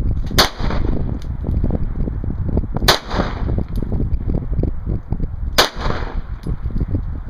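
Three single pistol shots from a Glock 23 in .40 S&W, fired slowly about two and a half seconds apart, each a sharp crack with a short echo. Wind buffets the microphone with a steady low rumble throughout.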